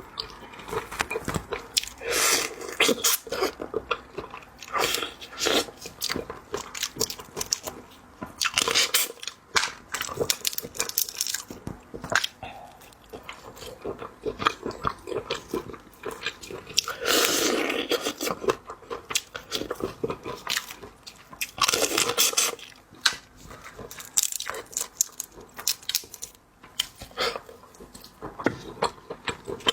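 Biting, crunching and chewing lobster: many sharp crackles and clicks with wetter chewing between, and a few louder crunches.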